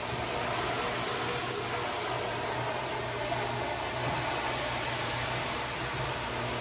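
Rotary floor scrubber running steadily, its brush spinning on a soapy, wet area rug: a constant motor hum under a steady hiss.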